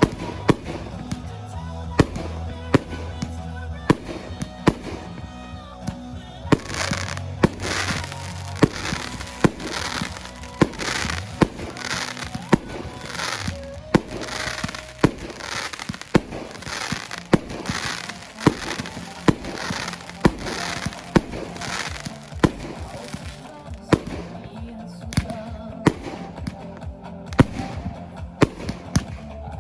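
Fireworks display: shells bursting and crackling, mixed with a music track that has a steady beat of about one strike per second.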